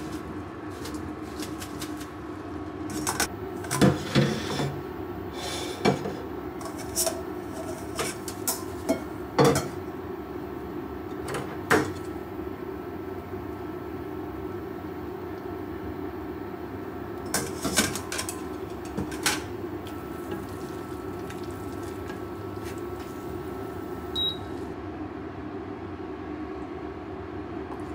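Stainless steel mesh colander being shaken and knocked against a steel sink and plate to drain spaghetti: a run of sharp metallic taps and clatters, with more around two-thirds of the way through, over a steady low kitchen hum. A single short high beep comes near the end.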